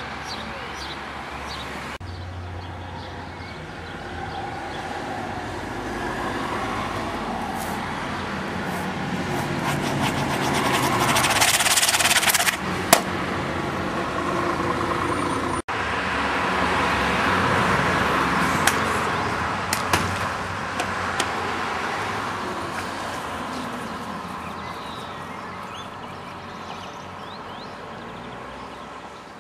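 Motor vehicle engine running, growing louder over several seconds, breaking off abruptly, then swelling again and slowly fading away near the end.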